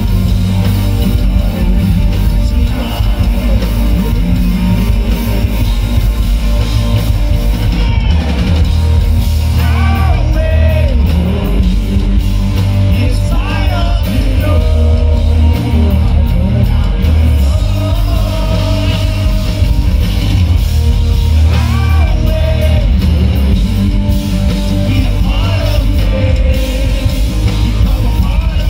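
Live rock band playing loud over a PA: electric guitars, bass and drum kit, with a male lead vocal singing over them from about eight seconds in.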